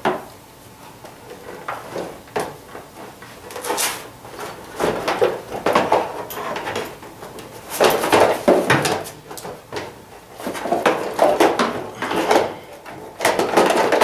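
Plastic ATV body panels knocking, scraping and rattling against the quad's frame and handlebars as they are lifted off, in irregular bursts.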